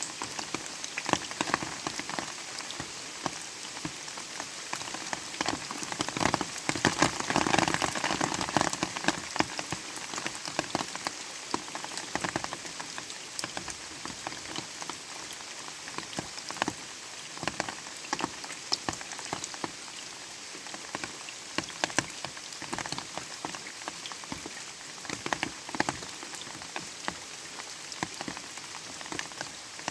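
Light rain falling, a steady hiss with many distinct drops pattering on a surface; the drops grow briefly denser and louder a few seconds in, then settle back.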